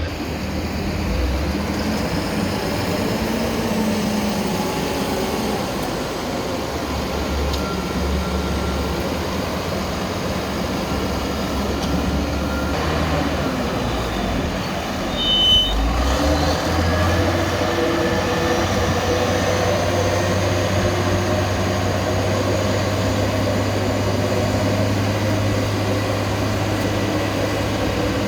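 Heavy diesel machinery working a corn silage pile: a wheel loader and tractor engines running steadily. About halfway through the sound briefly swells, then settles into a steady low drone.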